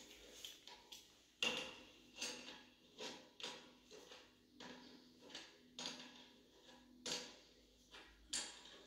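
Flexible hose's connector nut being turned onto a chrome angle valve: a run of sharp metal clicks, about one or two a second, each with a short ringing tail.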